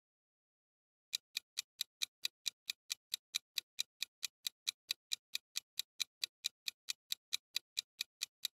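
Clock-ticking countdown timer sound effect: fast, even ticks, about four and a half a second, starting about a second in.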